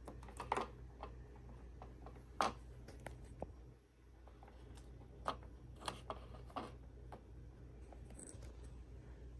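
Light clicks and taps of small plastic toy pieces being handled and set down on a table, scattered at irregular moments, the sharpest about two and a half seconds in, over a faint steady low hum.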